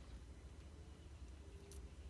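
Near silence: only a faint, steady low rumble.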